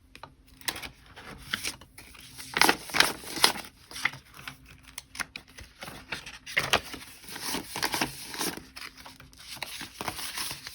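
Paper banknotes being handled and slid into a cash envelope: irregular rustling and crinkling with light taps, a few louder rustles about three seconds in and again near seven seconds.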